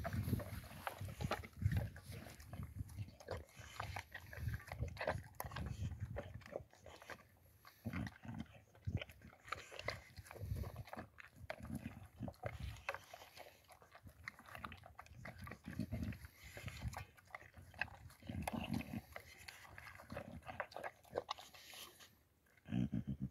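A Boxer dog eating from a metal bowl: irregular chewing and crunching of kibble in short bouts, with clicks and low thuds.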